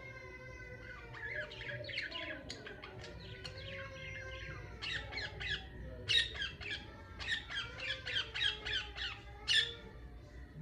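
Pet budgerigars chattering in a rapid string of short chirps and squawks that grows busier and louder after about five seconds.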